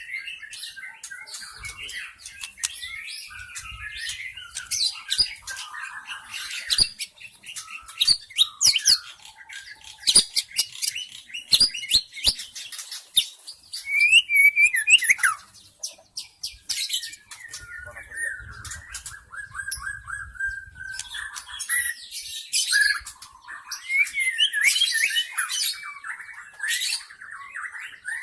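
White-rumped shama singing a fast, varied song of whistles, chattering phrases and sharp ticking notes, with a buzzy rattling trill a little past the middle.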